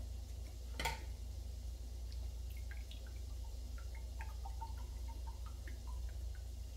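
Liquid poured from a small paper carton into a ceramic mug, trickling and dripping in many small splashes. One sharp click about a second in.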